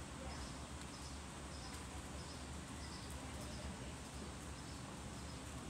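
Steady low hum and hiss of arena background noise, with faint, short high chirps repeating about twice a second.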